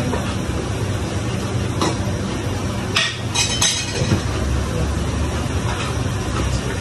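A few sharp clinks and knocks of kitchenware being handled on the counter, a cluster of them about three seconds in, over a steady low rumble.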